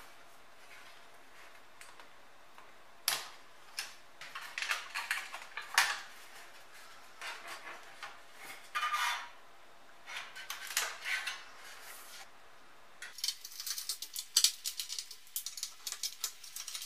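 Handling sounds of an LCD monitor's sheet-metal chassis and circuit boards being taken apart: scattered metal clicks, taps and short scrapes after a quiet first few seconds. Near the end comes a quick run of small clicks and rattles.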